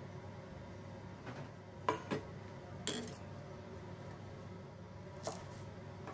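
Kitchenware being handled on a stainless-steel counter: about five short knocks and clinks, the loudest about two seconds in.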